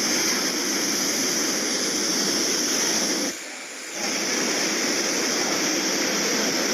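Steady rushing noise of torrential rain and floodwater, dropping for a moment about three and a half seconds in before carrying on.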